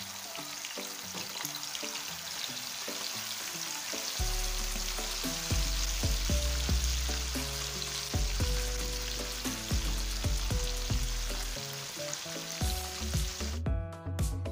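Chicken gizzards deep-frying in a pan of hot oil: a steady sizzle, under background music whose bass line comes in about four seconds in. The sizzle cuts off abruptly near the end, leaving only the music.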